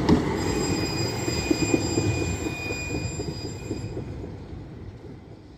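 A tram running on street track: a steady rumble with scattered wheel knocks and a thin steady high whine, fading out over the last couple of seconds.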